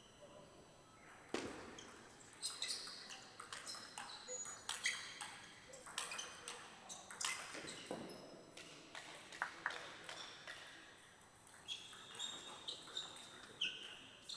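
Table tennis rally: a quick run of sharp clicks as the celluloid-type ball is struck by rubber-faced bats and bounces on the table, starting about a second in and ending about ten seconds in when the point is won. Short high squeaks follow near the end, typical of sports shoes on the court floor.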